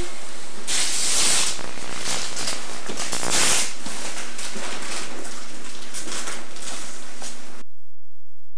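Wrapping paper and tissue paper rustling and tearing in crackling bursts, cutting off abruptly near the end.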